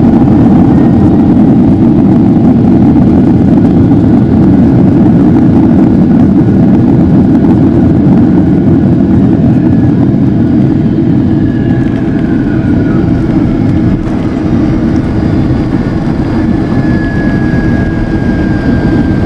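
Inside the cabin of a Boeing 767-300ER rolling out on the runway just after landing: a loud steady rumble of engines and wheels that eases off a little after about twelve seconds as the jet slows, with a faint thin whine in the last few seconds.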